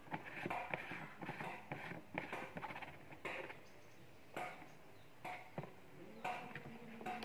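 Plastic screw cap on a knapsack sprayer's tank being twisted by hand: irregular scratchy scraping from the threads with a run of rapid clicks about two and a half seconds in, then a few separate scrapes and knocks as the hands move on the sprayer.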